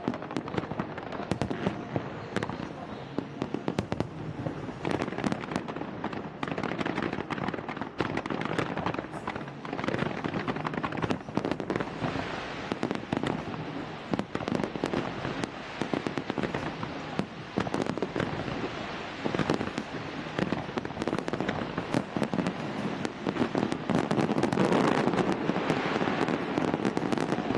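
Large fireworks display: a dense, continuous run of bangs and crackles going off in rapid succession, getting denser and louder near the end.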